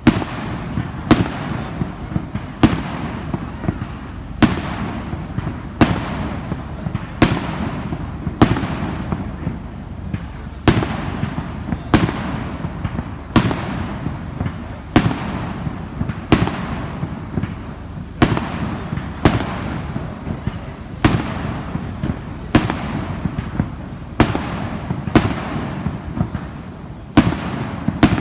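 Fireworks display: a long run of sharp shell bursts, roughly one bang every second, over a constant noisy background between the bangs.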